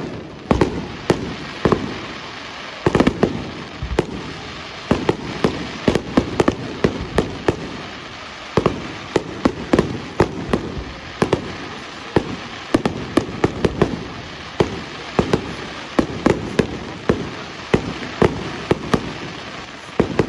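Fireworks display: a rapid, irregular run of sharp bangs from bursting aerial shells, often several a second, over continuous crackling and rumbling.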